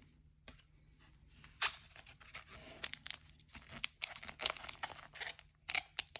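Foil booster pack wrapper being torn open and crinkled by hand: a run of short, sharp crackles and rips, starting a little more than a second and a half in, with an awkward, drawn-out tear.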